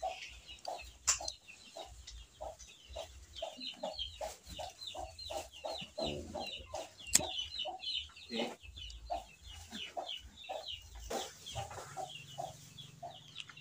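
Chickens clucking in a quick, steady run of short calls, with a couple of sharp knocks.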